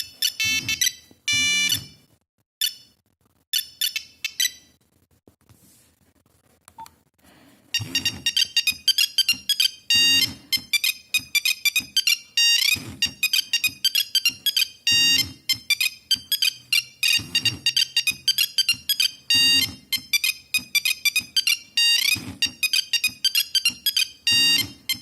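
Nokia 3410 mobile phone playing monophonic ringtones: a few short beeping phrases, a couple of seconds of quiet, then a fast, busy melody of beeps from about eight seconds in.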